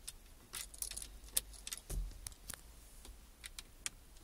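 A string of irregular light clicks and taps, with a soft thump about two seconds in, over a faint low hum.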